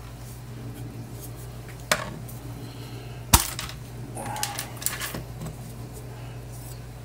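Pistol crossbow being handled, its plastic parts giving hard clicks and knocks: a sharp click about two seconds in, a louder one about halfway, then a few lighter clicks and rattles.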